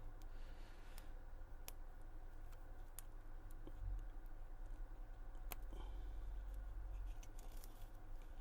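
A few faint sharp clicks of opening tools prying the back glass off a Samsung Galaxy S21 Ultra, over a low steady hum.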